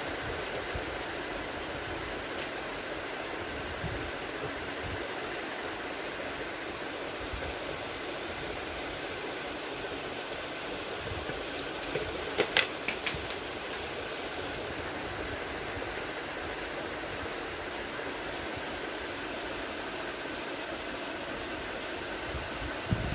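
A steady, even whooshing background noise, like a fan or air conditioning running, with a few sharp clicks about halfway through.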